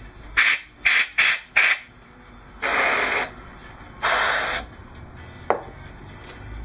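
Short blasts of air hissing: four quick puffs, then two longer blasts, as when blowing resin dust out of a freshly drilled hole. A single sharp knock follows near the end.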